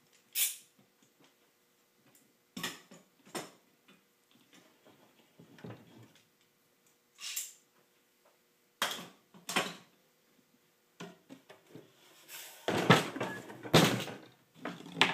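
Bar clamps being loosened and taken off a glued-up pine box: a series of separate clicks, knocks and clanks of metal clamp parts against wood, coming closer together and louder near the end.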